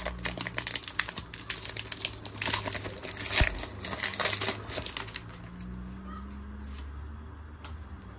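Foil wrapper of a Pokémon trading-card booster pack crinkling and tearing as it is ripped open by hand: a dense crackle that dies down about five seconds in.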